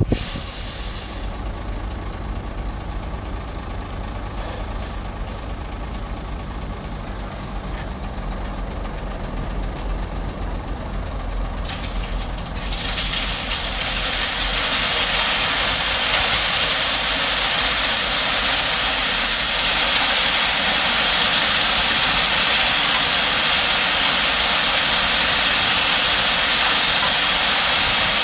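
Diesel dump truck running with its bed tipping up. About halfway through, a loud, steady rushing hiss starts and builds as the load of rock slides out of the raised bed and pours down a chute.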